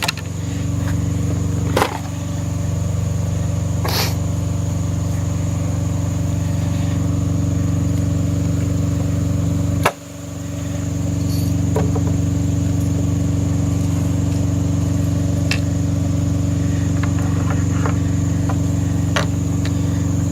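Semi truck's diesel engine idling steadily, a low even hum heard inside the cab, with a few sharp clicks and knocks of packaging being handled, the loudest about halfway through.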